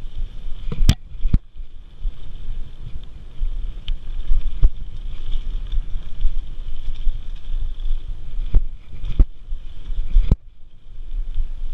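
Mountain bike riding fast down a dirt singletrack: a steady rumble of tyres and wind on the microphone, with about seven sharp knocks and rattles as the bike hits bumps, and a faint steady high buzz that cuts out with the last knock near the end.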